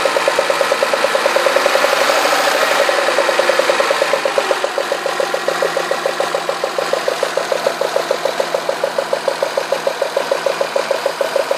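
Citroën Xantia V6 engine running with a rapid, even clatter of about seven ticks a second, the kind of noise taken for bearing damage or failing hydraulic lifters. The cause was spark flashover at cylinder one, whose spark plug well was flooded with oil spilled at an oil change.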